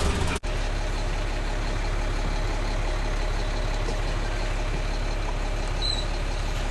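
Tour bus engine running steadily with a low hum and road noise, heard from inside the bus. The sound drops out for an instant about half a second in, at an edit.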